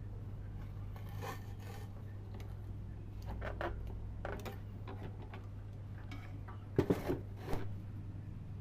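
Intermittent rubbing and scraping strokes over a steady low hum, with a few sharp knocks about seven seconds in.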